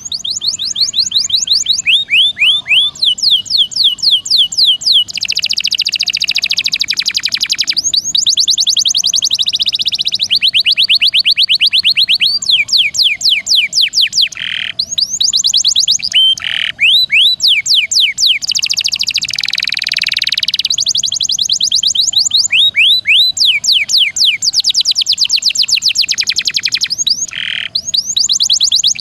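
Domestic canary singing in long, fast rolling trills: rapid runs of repeated high chirps with a few harsher buzzy stretches, broken by brief pauses.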